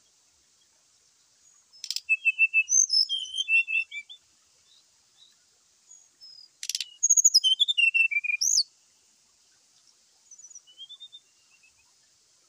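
Brown-chested jungle flycatcher singing: two loud bursts of rapid chirping, twittering notes, each opened by a sharp click, then a fainter short phrase near the end.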